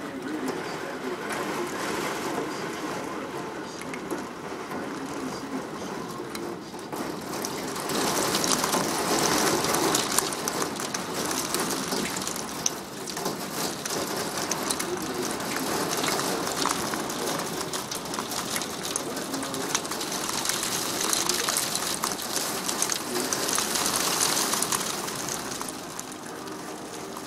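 Heavy rain pouring and spattering on a wet balcony and the rooftops below, with wind. It swells louder twice, about a third of the way in and again near the end.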